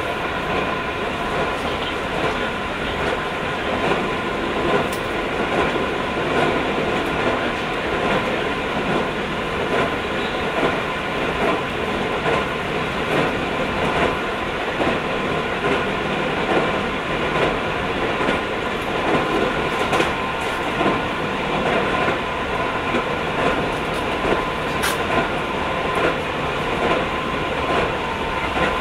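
Running noise inside a Keio 5000-series electric train car: a steady rumble of wheels on rail, with a steady hum and a faint clack about once a second.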